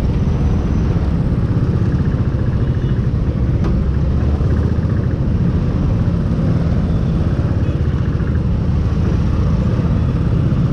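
Royal Enfield single-cylinder motorcycle engine running at low speed in slow traffic, a steady low rumble.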